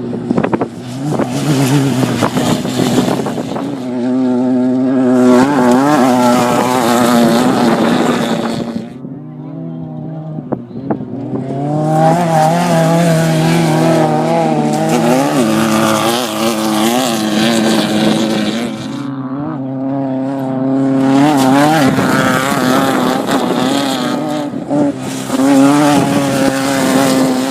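Desert off-road race vehicles going past one after another at speed, their engines revving up and down. The sound swells and fades with each pass, with short lulls in between.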